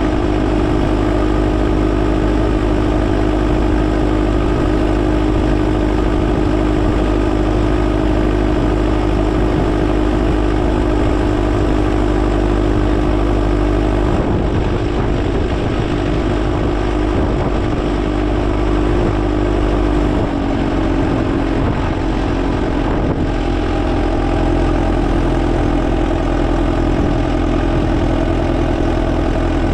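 Volvo BM 6300 backhoe loader's diesel engine running steadily while the machine drives, heard close from the driver's seat just behind the upright exhaust stack. The engine note drops slightly about two-thirds of the way through.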